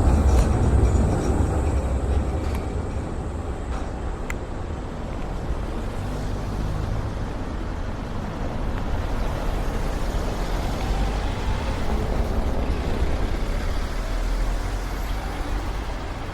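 Outdoor street ambience through a windscreened camera microphone: steady road-traffic noise over a deep wind rumble, louder in the first couple of seconds, with a few faint clicks early on.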